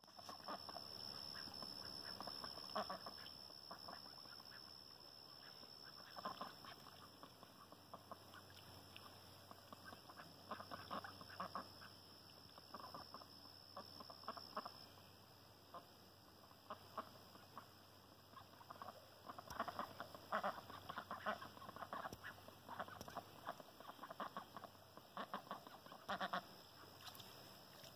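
Ducks quacking, faint, in short bouts off and on, the loudest bouts in the second half.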